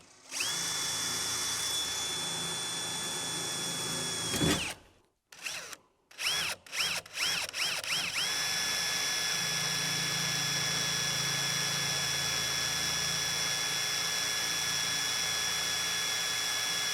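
Power drill with a 1/8-inch bit drilling pilot holes in a truck door's sheet metal for the speaker screws. It runs steadily for about four seconds and stops, is pulsed in several short bursts, then runs steadily again from about eight seconds in.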